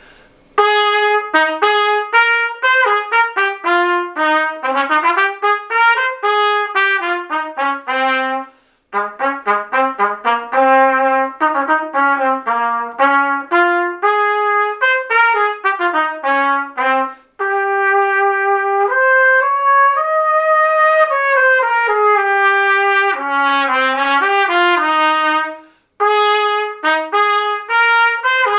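Solo trumpet playing quick runs of notes at a march tempo of 120, broken by short breaths about every eight or nine seconds.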